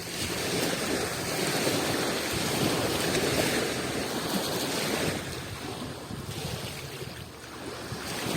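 Adriatic Sea waves washing onto the shore: a swell of surf that builds and holds for a few seconds, falls away, then starts building again near the end.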